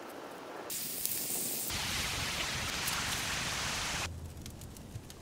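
Beef fillet searing in a hot pan: a loud, dense sizzle that cuts off abruptly about four seconds in. After that comes the quieter sound of a knife slicing through the crusted meat on a wooden board, with faint scattered clicks.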